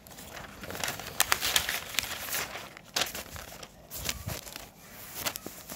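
Paper notebook pages being flipped and handled: irregular rustling and crinkling with several sharper crackles.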